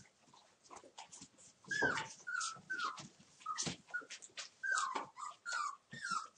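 Month-old Entlebucher mountain dog puppies at play, giving a string of short high squeaks and yips, several sliding down in pitch, with short clicks in between.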